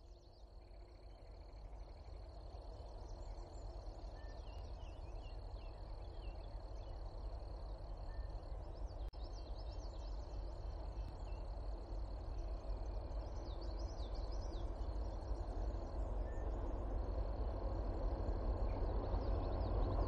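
Low rumble of an approaching train, growing steadily louder, with birds chirping and a steady high-pitched buzz in the background.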